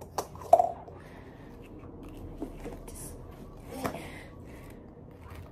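Light clicks, taps and rubbing from a bowling ball switch-grip thumb insert being handled and fitted into the ball's thumb hole, with a sharper click about half a second in and another near 4 seconds.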